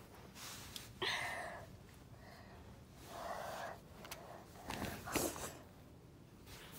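A person's breathy snorts and sighs, three of them about two seconds apart: pretend snoring for a toy put down for a nap.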